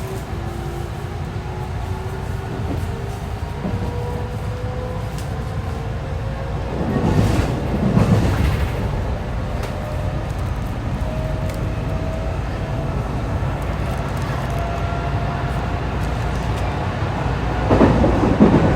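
JR West 207 series train accelerating, its motor-inverter whine climbing slowly in pitch as two parallel tones a little out of step. The motor car KuMoHa 207-1037 has its two inverters' acceleration sounds offset from each other, which gives this set its unusual tone. Under it runs a steady rumble, with two swells of louder rushing noise about seven seconds in and near the end.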